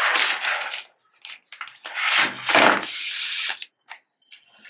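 Protective paper wrap being peeled and slid off a MacBook Air's aluminium body: two long rustling, rubbing swishes, the second one longer.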